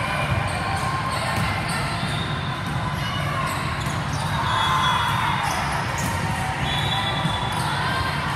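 Volleyballs being struck and bouncing on the gym floor, a run of sharp irregular thumps, over a steady echoing hubbub of voices in a large hall.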